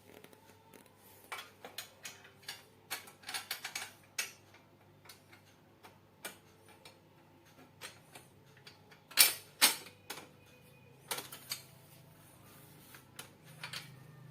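Irregular clicks and clatter of small metal hardware, such as bolts and washers, being handled and fitted while an electric motor is mounted on a grinder frame, with two louder knocks about nine seconds in.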